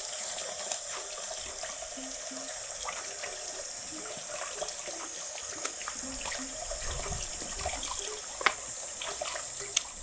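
Meat sizzling on a grill: a steady hiss with scattered small pops and crackles, and one sharper pop about eight and a half seconds in.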